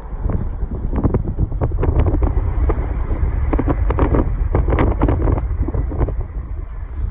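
Wind buffeting the microphone: a loud, deep rumble broken by irregular crackling gusts.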